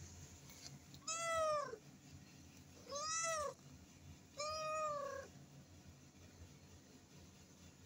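Tabby kitten meowing three times, each meow rising then falling in pitch, the last one the longest.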